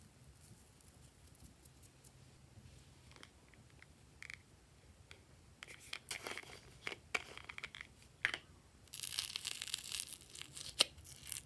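Close-up handling of plastic containers. Scattered clicks and crackles come from a plastic toy capsule being twisted open, then about nine seconds in a dense, loud crinkling crackle as a small plastic tub of glitter slime is opened.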